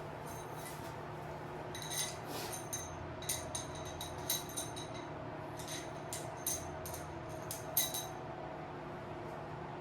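Light metal-on-metal clinks of hand tools working on a minibike's brake assembly during teardown: a dozen or so short ringing clinks at uneven intervals, over a steady background hum.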